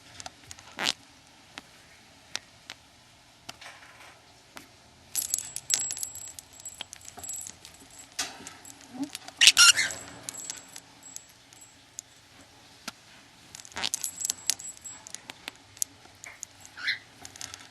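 Metal jingling and clicking in several bursts, with a thin bell-like ring, from a pet bird's cage toys as the bird plays with them. A short high squeak comes near the end.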